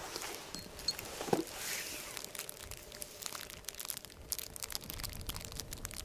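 Wood campfire crackling, with many irregular small pops and snaps that grow denser after the first couple of seconds; a brief pitched sound comes a little over a second in.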